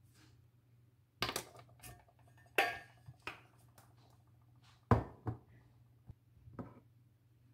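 Kitchen utensils clinking and knocking: a stainless-steel measuring cup and a plastic measuring spoon tapping a ceramic mixing bowl and being set down on a stone countertop, about seven sharp knocks in all, the loudest about two and a half and five seconds in, over a faint low hum.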